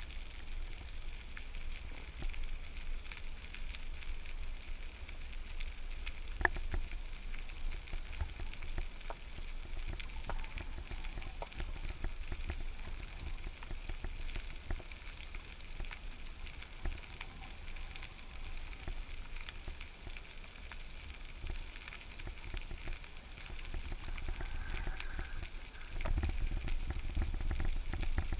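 Underwater ambience through a camera's waterproof housing: a steady low rumble with constant faint crackling and scattered sharp clicks, typical of a rocky seabed. The low rumble grows louder near the end.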